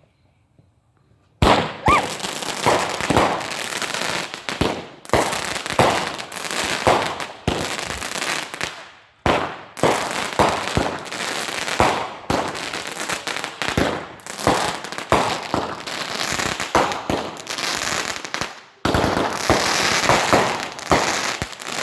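Fireworks going off: after a moment of quiet, a dense, rapid run of loud bangs and crackling begins about a second and a half in, with two brief lulls.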